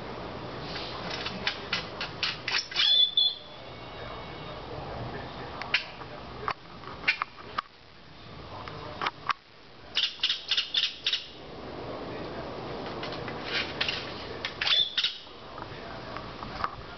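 A bird singing in about four bouts of rapid, sharp chirps and clicks, a couple of bouts ending in a short, clear high whistle.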